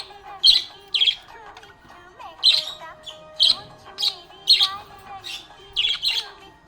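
Budgerigar chirping: short, loud, sharp chirps, irregular at about one a second.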